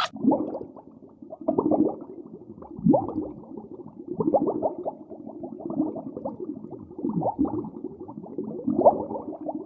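A farm animal calling over and over in short, irregular calls that bend up and down in pitch, sounding muffled.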